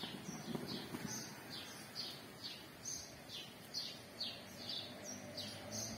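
A small bird chirping over and over, short high chirps about two to three a second.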